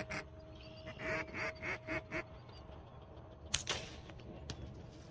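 A duck call blown in a short run of about four quacks, each falling in pitch: the call that draws the dog's eye to the mark. About three and a half seconds in comes a single sharp crack.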